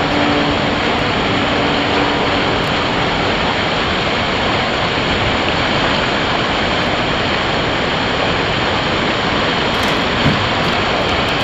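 Whitewater roaring over a creek waterfall and the rapids below it: a steady, dense rush of falling and churning water.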